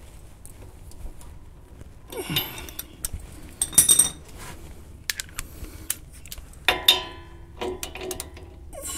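Metal hand tools, a socket wrench and a wrench, clinking and clicking as they are fitted and worked on the nut of a worn sway bar end link. It starts quiet, then comes a scatter of sharp metallic clinks, loudest about four seconds in, and a quick run of clicks a little before the end.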